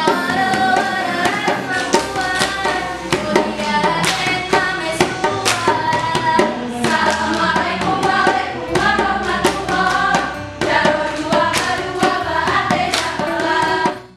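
Saman dance performance: a group of girls' voices chanting in unison over a rapid, rhythmic patter of hand claps and body slaps, with a small hand-beaten drum keeping time.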